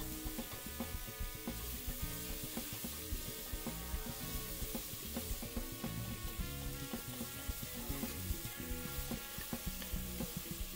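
Sliced onions sizzling as they fry in a stainless steel pot, with tongs scraping and clicking against the pot as they are stirred. Background music plays underneath.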